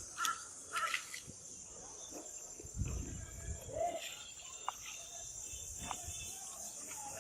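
Steady high-pitched insect chorus, with a few short repeated calls in the first second and some low thumps and rustles about three seconds in.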